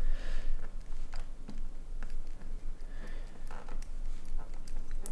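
Scattered light clicks and taps from a computer keyboard and mouse, irregular and a few per second, over faint steady room noise.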